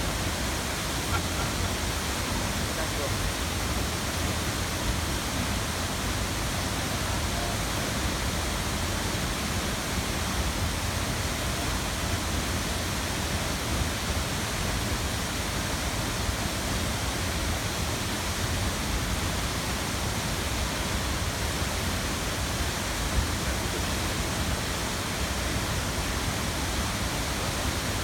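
Steady, even rush of a tall waterfall falling into a gorge.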